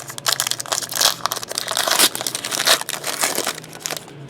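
Trading-card pack wrapper being torn open and crumpled by hand, a dense run of loud crinkling and crackling.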